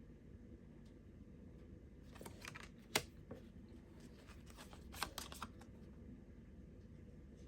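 Tarot cards being handled: a few soft swishes and taps, with a sharper click about three seconds in and a short cluster of taps a couple of seconds later.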